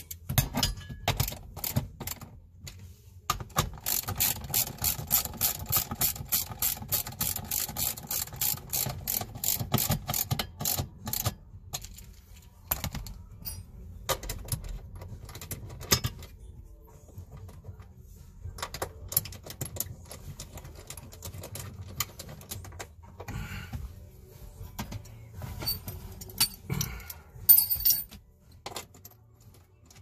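Hand socket ratchet clicking in quick, even strokes, about four clicks a second for several seconds, as bolts on the shifter mounting are turned. Afterwards come scattered clicks and knocks of tools and metal parts, with a sharp clink near the end.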